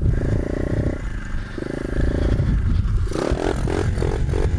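Four-stroke single-cylinder dirt bike engine riding along, holding its revs twice in the first couple of seconds. About three seconds in it breaks into a quick series of rising revs as the throttle is worked.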